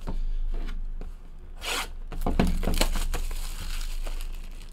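Plastic shrink-wrap being torn and peeled off a sealed trading-card hobby box: several tearing and crinkling pulls, the loudest about two to three seconds in.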